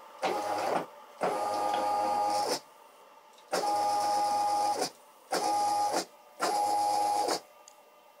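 Stepper motors of a homemade CNC machine driving its axes along lead screws in five separate moves, each a steady pitched whine that starts and stops abruptly.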